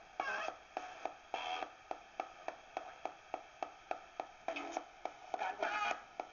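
Direct Linc ghost box radio sweeping through stations, clicking about three or four times a second as it jumps between them. Brief snatches of broadcast sound and static come through between the clicks.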